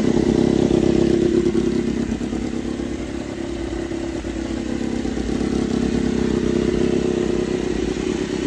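Honda RC213V-S's V4 engine idling steadily through its exhaust, without revving.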